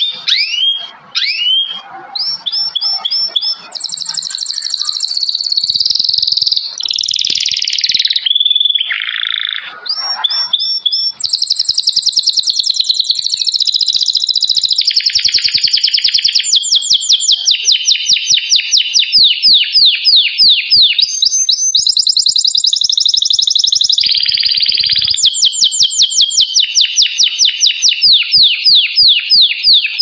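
Loud, dense songbird chorus: overlapping warbles, trills and chirps. From about the middle on, long fast runs of short sweeping notes repeat several times a second.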